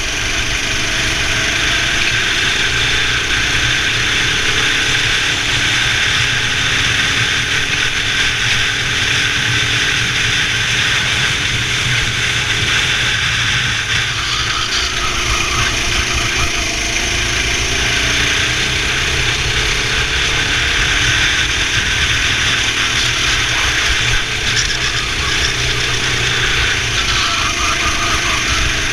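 Racing go-kart engine running hard, its pitch rising and falling again and again as it accelerates and backs off, under a steady loud rushing noise.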